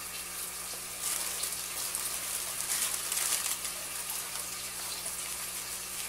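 Crinkly white packing material rustling as it is pulled out of a cardboard shipping box, loudest in the first few seconds, over a steady hiss and low hum.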